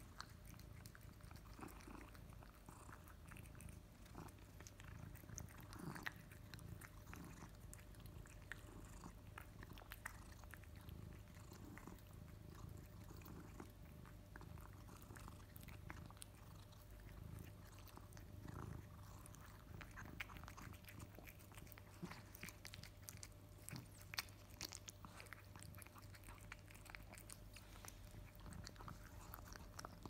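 British Shorthair cat eating wet food from a stainless steel bowl: faint, irregular wet chewing clicks and smacks, with a few louder ones.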